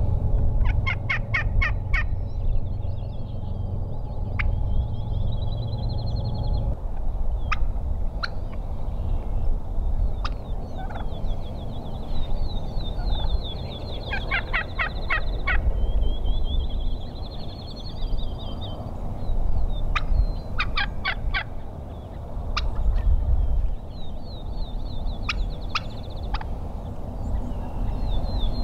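Wild turkey gobbling in three bursts of rapid rattling notes: one about a second in, one near the middle and one about two-thirds through. Between the gobbles a high, fast trill repeats several times over a steady low rumble.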